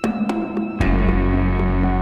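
Music: a sparse passage of short struck notes over held tones gives way, just under a second in, to a louder, full sustained chord.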